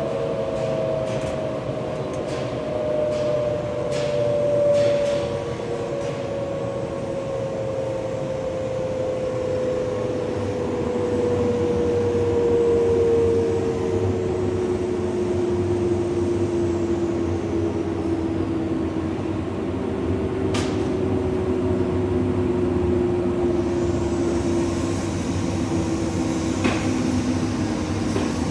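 Twin counter-rotating rotors of a cage mill running empty on its no-load test: a steady mechanical noise with a low hum and a whine that falls slowly in pitch throughout, with a few sharp clicks in the first seconds.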